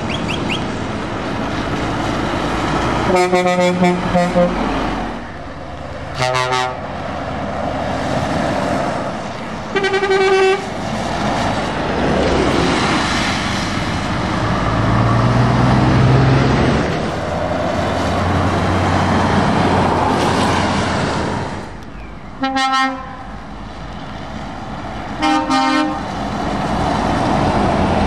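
Heavy trucks passing one after another on a wet road, their tyres hissing through the water. Truck horns are sounded about five times, one longer blast early on followed by short toots spread through.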